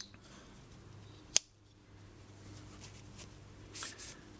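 Slipjoint pocket knife blade snapping open against its backspring: two sharp clicks about a second and a half apart, then a faint rustle near the end.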